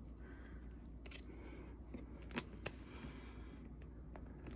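Faint handling sounds of a plastic binder pocket page and a sleeved photocard: soft rustles with a few light scattered ticks.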